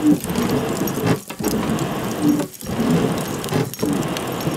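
Large homemade hand bellows with leather flapper valves blowing air into a charcoal forge: a steady rush of air through the burning coals, broken by a short dip about every second and a quarter as each stroke changes.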